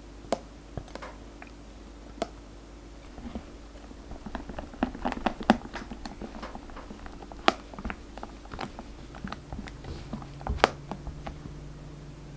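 Silicone spatula folding whipped cream and mango purée in a glass bowl: soft wet squishing with scattered taps and clicks of the spatula on the glass, busiest in the middle stretch.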